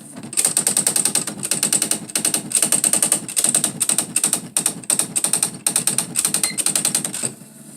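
Smith Corona SE 200 electronic typewriter printing on its own during its self-demo: rapid machine-gun runs of print strikes, each burst about a line's worth, broken by short pauses as the carriage moves on.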